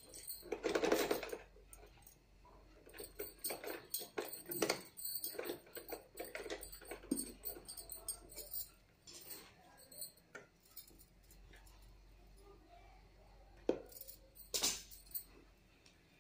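Manual sewing machine stitching frills in short, irregular runs, with metallic clicking and clatter as the cloth is fed under the presser foot. It goes quieter for a few seconds late on, then gives two sharp clicks near the end.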